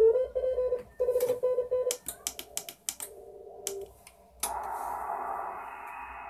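Homemade HF transceiver's loudspeaker playing a Morse code (CW) signal as an on-off tone for about two seconds. A quick run of sharp clicks follows as the operator switches bands. About four and a half seconds in, steady receiver hiss sets in, cut to the narrow SSB passband.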